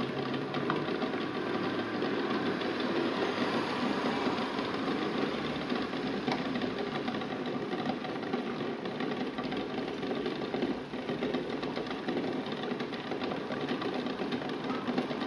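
Eggs rattling against a stainless steel saucepan in water at a rolling boil: steady bubbling with a rapid, continuous knocking of shells on metal.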